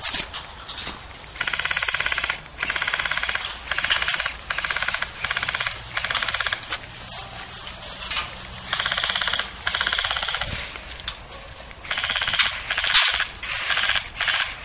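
Airsoft rifles firing short full-auto bursts, about a dozen in quick succession, each a rapid, even rattle lasting under a second. A few sharper single cracks are mixed in, the loudest near the end.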